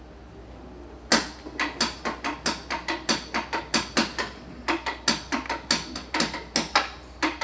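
Dry, sharp percussion clicks in a quick, uneven rhythm of several strokes a second, starting about a second in. They form the percussion opening of an Afro-Peruvian song.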